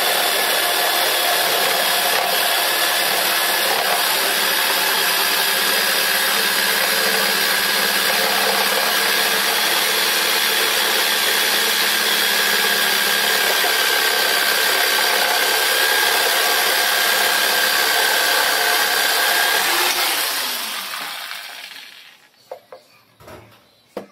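Black+Decker corded jigsaw sawing across a wooden plank, its motor and blade running steadily for about twenty seconds, then winding down as it is switched off. A few short knocks follow near the end.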